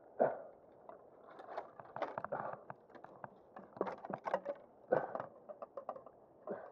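Irregular crunching, snapping and rustling of twigs and brush underfoot at the water's edge, with cloth rubbing close to the microphone. A sharp knock comes just after the start.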